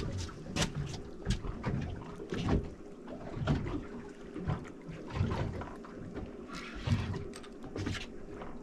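Wind on the microphone and water noise around a small open fishing boat, with scattered irregular knocks and clicks.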